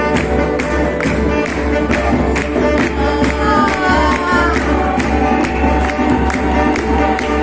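Music with a steady, even beat under held tones, with singing voices; a melodic line slides in pitch about halfway through.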